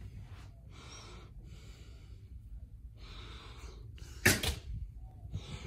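A person breathing close to the microphone in several short puffs, with one sharp loud knock about four seconds in.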